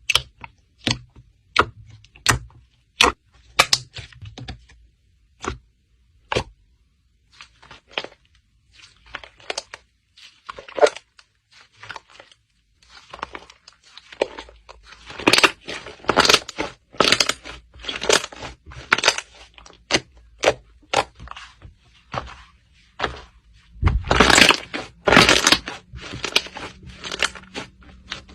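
Slime being worked by hand, giving a run of sharp clicks and crackling pops. The pops are spaced out at first and come thicker and louder in the second half.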